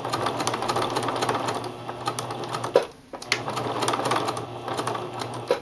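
Home sewing machine sewing a dense zigzag satin stitch at a very short stitch length. It runs in two bursts with a brief stop about halfway through, then stops again near the end.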